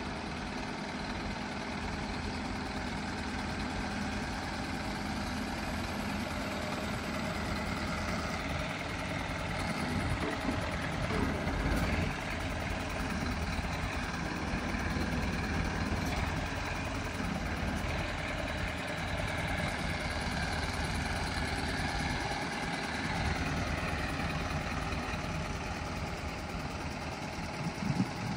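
Isuzu ELF/NPR truck's diesel engine idling steadily while it drives the hydraulics of its truck-mounted straight boom crane as the boom telescopes out.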